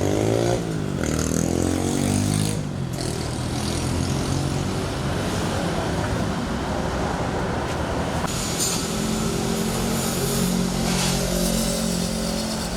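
Peanut-cracking machine running with a steady mechanical din. Its hum glides in pitch over the first couple of seconds and settles into a steadier drone about nine seconds in.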